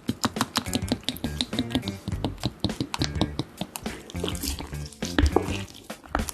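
Close-miked eating of noodles: many quick, wet mouth clicks of chewing, several a second, over background music with a repeating low bass line.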